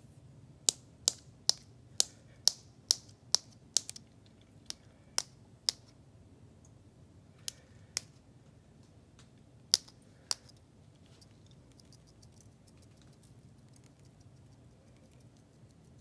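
Sharp plastic clicks from a small Brusho powder pot being shaken out over paper: a quick run of about eight clicks at roughly two a second, then scattered single clicks and fainter ticks.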